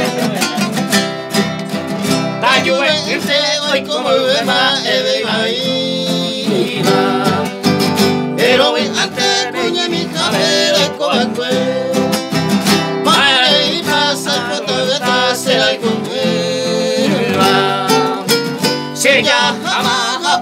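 Two nylon-string classical guitars strummed together while a man sings over them.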